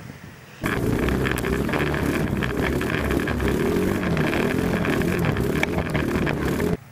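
ATV engine heard close from an onboard camera, running hard over rough marshy ground with its pitch rising and falling, along with rattling and wind on the microphone. It comes in abruptly about half a second in and cuts off just before the end, with fainter distant engine sound on either side.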